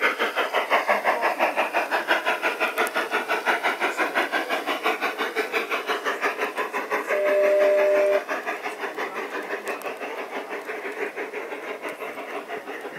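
Model steam locomotive chuffing in a quick, even rhythm, about five beats a second, with one whistle blast of about a second just past halfway. The chuffing grows fainter near the end as the train moves away.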